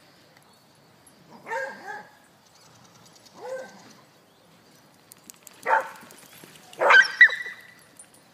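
A dog barking in a short series of separate barks, spaced a second or two apart; the loudest come near the end.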